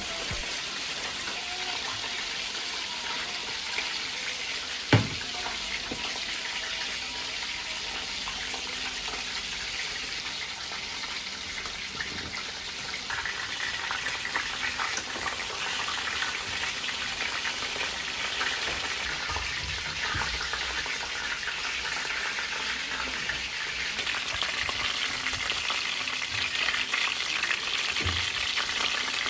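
Food frying in a pan, a steady sizzle, with a sharp clack about five seconds in and a softer knock near the end.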